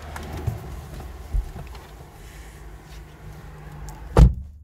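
Low, steady engine and road rumble inside a moving car's cabin, with a few light knocks and one loud thump about four seconds in.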